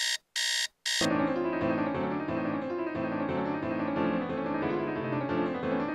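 Electronic alarm clock beeping in three short, high-pitched bursts, cut off about a second in by piano music that then plays on.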